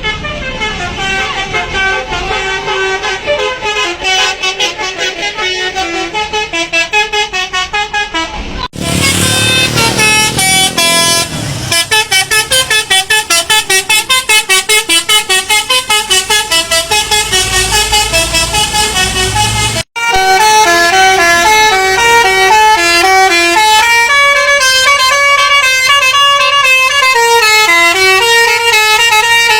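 Indonesian bus telolet (basuri) multi-tone horn playing rapid melodic note sequences, loud. The tune changes abruptly about 9 seconds in and again about 20 seconds in, and from about 12 to 20 seconds the notes pulse in a fast, even rhythm.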